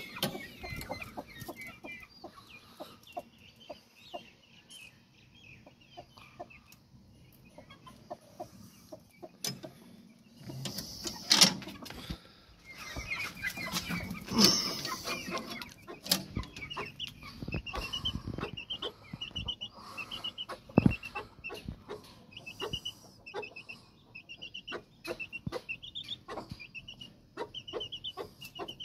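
Aseel chickens clucking while a chick peeps in quick runs of short, high calls, which grow more frequent in the last third. Scattered sharp knocks and rattles sound throughout, a few of them loud.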